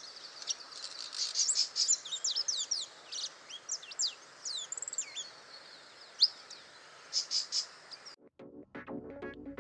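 Saffron finch singing: a fast run of sharp chirps and quick sweeping notes over a steady background hiss. About eight seconds in, the song cuts off and electronic music begins.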